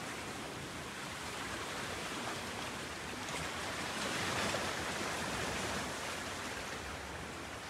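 Small sea waves washing and lapping against a rocky shore: a steady wash of water, swelling slightly about halfway through.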